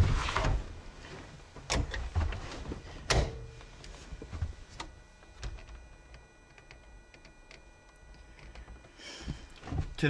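Knocks and thunks of someone climbing into a Jeep's driver's seat and handling a RAM mount on the dash, with the loudest thunk about three seconds in followed by a short ring. Lighter clicks and rattles follow as the mount is moved, then it goes quiet.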